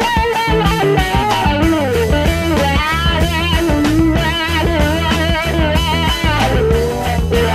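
Background rock music: electric guitar playing a bending lead melody over bass and a steady drum beat.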